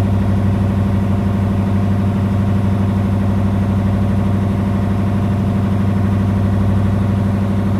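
Motorboat engine running steadily under way, one even low hum that does not change, with water rushing and churning past the hull.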